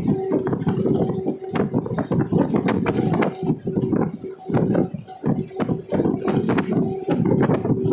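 Moving vehicle on the road with a steady whine, its body rattling and knocking many times a second.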